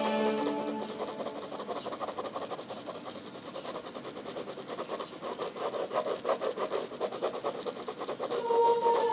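Pen scratching on sketchbook paper in quick, repeated hatching strokes, an uneven rasp that pulses several times a second. Background music fades out in the first second and comes back near the end.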